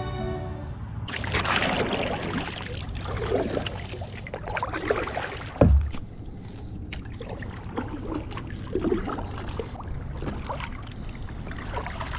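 Kayak being paddled off: irregular splashing and sloshing of paddle strokes in the water, with one heavy knock a little before halfway.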